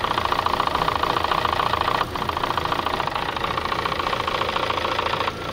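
Chevrolet Sonic's 1.8-litre engine idling with a fast, steady ticking drum from the top of the engine. A new PCV valve has not cured it, and the mechanic suspects the camshaft or its reluctor wheel, with an exhaust camshaft position code P0366 set.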